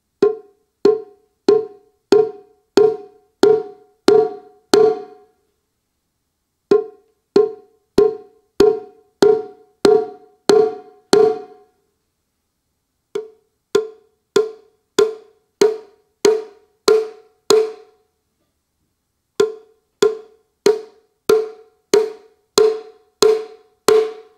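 Roland TAIKO-1 electronic taiko playing its EasyShime (shime-daiko) sound: four runs of eight evenly spaced stick strikes, about one and a half a second. Each strike is a short, bright, pitched crack that dies away quickly, and the runs sound nearly alike.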